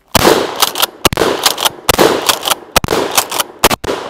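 Mossberg Maverick 88 pump-action shotgun firing birdshot: five shots about a second apart, each followed by the double clack of the pump being racked back and forward. The gun cycles cleanly, with no hang-up between shots.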